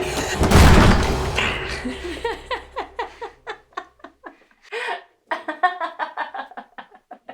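A loud boom about half a second in that dies away over the next few seconds, then a person laughing in a long run of short ha-ha bursts.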